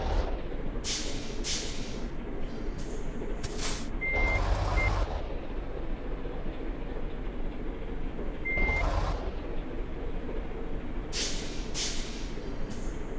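Road traffic with large vehicles passing, two swelling past about 4 and 8.5 seconds in. Short single-pitched high beeps sound as they pass, twice and then once, and brief hisses come in pairs near the start and near the end.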